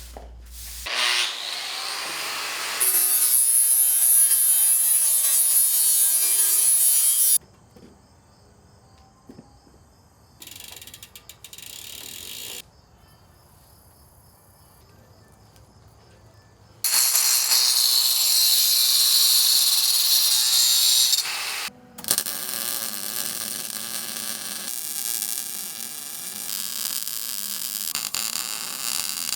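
Power tool cutting in two long loud runs, about three seconds in and again about seventeen seconds in, with a quieter stretch of small clicks and handling sounds between them and steadier workshop noise near the end.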